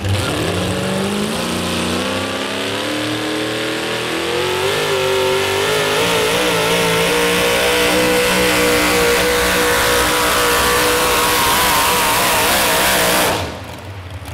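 Supercharged engine of a modified 4x4 pulling truck under full throttle on a pull. Its pitch climbs over the first five seconds, holds at high revs, and drops away suddenly about a second before the end.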